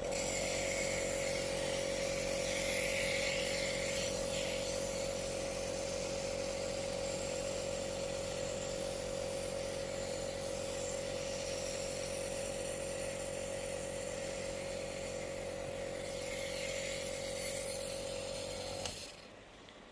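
A small electric motor running with a steady hum over a hiss, switched on at the start and cutting off about nineteen seconds in.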